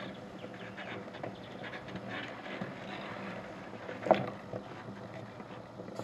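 Burning sneakers crackling, with a single thump about four seconds in as a heap of cut-up shoe pieces drops onto the burning shoe.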